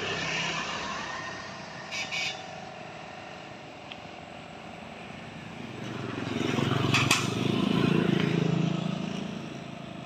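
A sendaren kite hummer droning in the wind, a low, snoring buzz that swells loud about six seconds in and fades again near the end.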